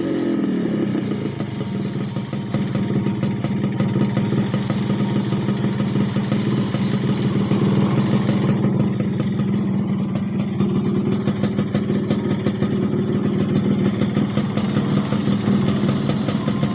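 Suzuki X4 motorcycle engine idling steadily, settling from a falling rev in the first half-second.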